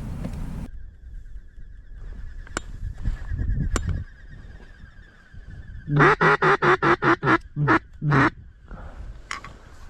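A rapid series of about ten loud, nasal duck quacks, roughly five a second, slowing over the last few, in the manner of a hen mallard's greeting call. A faint steady whistle runs under it.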